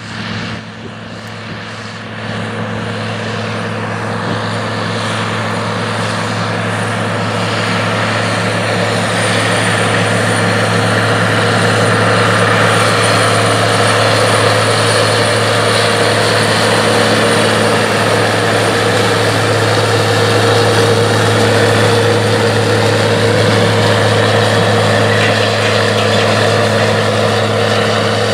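John Deere 9520 tractor's six-cylinder diesel engine running steadily under heavy pulling load with a Brillion Puli-Mulcher. It grows louder over the first ten seconds or so, then holds a constant deep drone.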